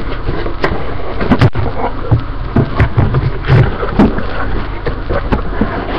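Irregular rustling with scattered knocks and clicks from objects being handled close to a webcam microphone, over a steady low hum.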